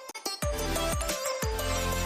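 Background music with a steady beat, a pulsing bass and drums; it drops out for a moment just after the start, then comes back in.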